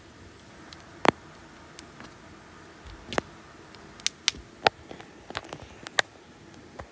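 Handling noise from a phone camera: sharp clicks and taps at irregular intervals. The loudest comes about a second in, and a quick cluster follows near the end.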